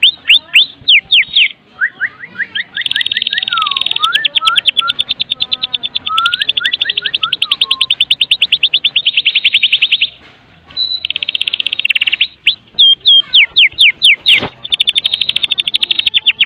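White-rumped shama (murai batu) giving its rapid rattling 'kretekan' call: long runs of clipped, downward-sweeping notes at about nine a second, broken by short slower whistled phrases and a brief pause. A single sharp click sounds near the end.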